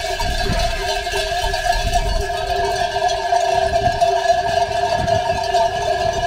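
Many sheep bells jangling continuously as a large flock of sheep walks past, over a steady hum.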